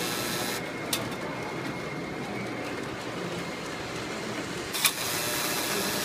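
Model electric trains running on metal track, a steady whirring rumble. A high hiss drops away about a second in and comes back near five seconds, with a sharp click at each change.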